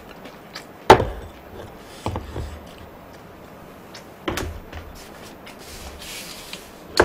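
Tableware knocking on a table as a bowl and chopsticks are handled: four sharp knocks, the loudest about a second in, with a little rubbing between them.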